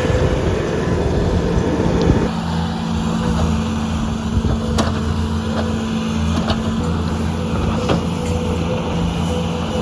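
Tractor engine running steadily while cattle lots are bedded. A rushing noise over the engine drops away about two seconds in, and a few sharp clicks or knocks sound over it.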